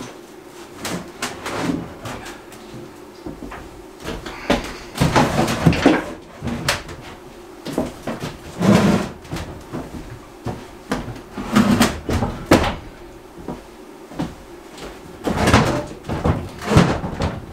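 Irregular knocks, bumps and clacks of a cabinet being handled, its doors and panels opening, closing and knocking, in several bursts.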